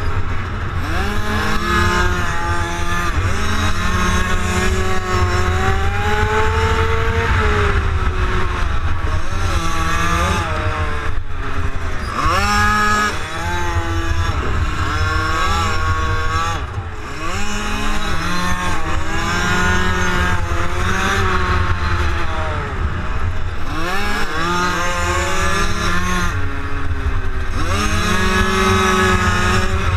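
Minimotard's single-cylinder engine at racing speed, picked up by the onboard camera: the revs climb in repeated rising sweeps through the gears and fall away several times when the throttle closes into corners. A steady low wind rumble runs underneath.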